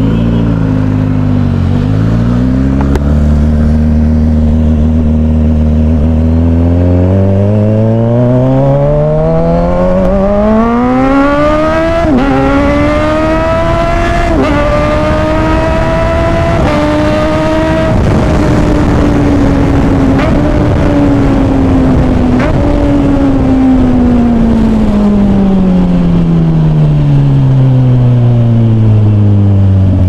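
Kawasaki Ninja 1000SX's inline-four engine through an Orion aftermarket exhaust, heard from the rider's seat: running low and steady at first, then accelerating hard with the pitch climbing, broken by quick dips at two upshifts midway. After that the revs fall slowly and smoothly as the bike slows.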